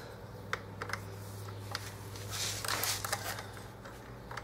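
Light metallic clicks and scraping of a 10mm spanner working the rear brake master cylinder pushrod on a dirt bike, turning it to lower the brake pedal, with a short rasping stretch about halfway through. A low steady hum runs underneath.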